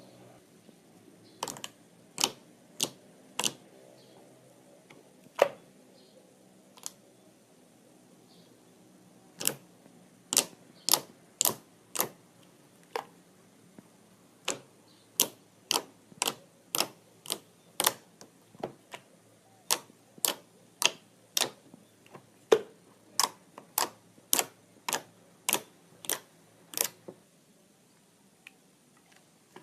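Slime being worked by hand, making a series of sharp clicking pops, roughly one every half second to second, with a few short pauses; the pops stop near the end.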